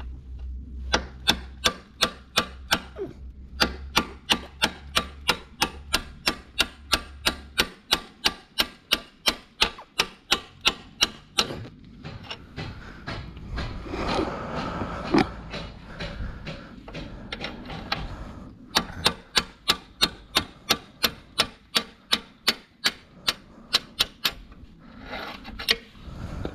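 A hammer striking a steel punch in quick, even blows, about three a second, driving out the front engine mount bolt of a 1994 Kawasaki KLE500. The hammering stops for several seconds midway, then starts again.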